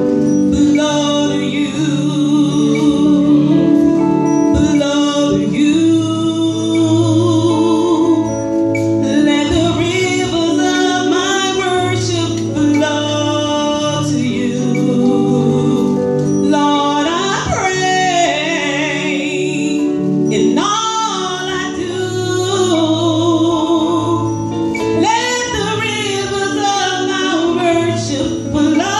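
Gospel song: a woman singing with vibrato and sliding notes over instrumental accompaniment.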